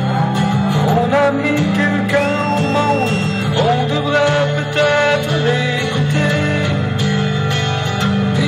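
Loud live music over a concert PA system: a guitar-led track with a steady sustained bass line under a melodic line that glides in pitch.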